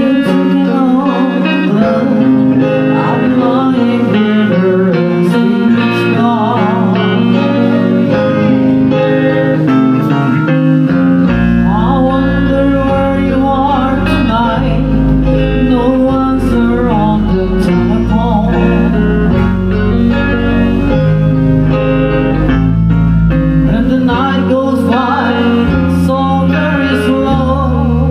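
Live rock band playing a song, with electric guitar and singing; a heavy bass line comes in about eleven seconds in.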